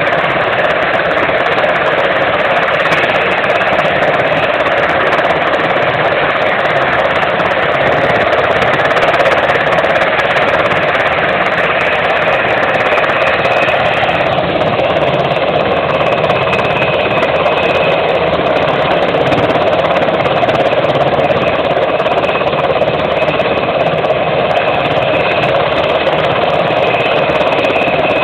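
US Navy Sikorsky H-60 Seahawk helicopter running on the ground with its twin turboshaft engines and rotors turning, a loud steady rush and chop. A thin high whine joins about halfway and holds steady.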